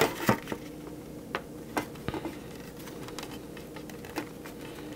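A few scattered light clicks and taps of hard plastic toy parts being handled and pressed together as a glued seam is lined up, over a faint steady hum.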